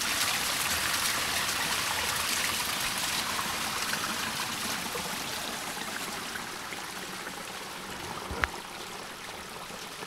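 Water streaming down along or under a forest path, a steady rushing that slowly grows fainter. A single short knock about eight and a half seconds in.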